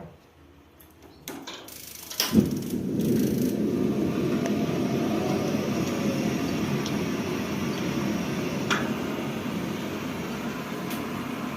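Gas water heater lighting on test: a few faint clicks, then a sudden whump as the burner catches about two seconds in, followed by the steady rush of the gas flame burning. The heater is working again after its repair.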